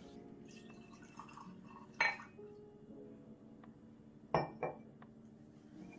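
Glass bottle and drinking glass clinking on a stone kitchen counter: one sharp knock about two seconds in and a quick double clink a little after four seconds.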